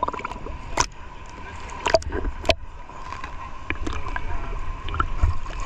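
Sea water sloshing and gurgling around an action camera held at the surface, with a low muffled rumble and a few sharp water clicks and splashes about one, two and two and a half seconds in.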